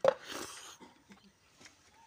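Eating noises: a sharp mouth smack and a short slurping rush as a handful of rice is taken into the mouth, then faint wet chewing clicks.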